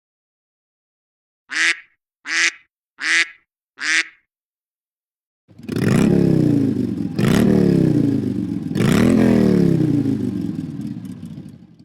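Two iPad ringtone sound effects played through the tablet's speaker. First four short duck quacks, then a motorcycle engine revved three times, its pitch falling after each rev. These match iOS's classic "Duck" and "Motorcycle" ringtones.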